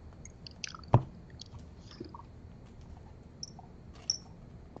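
Baseball cards and a plastic card sleeve being handled: light rustling and small clicks, with one sharper tap about a second in.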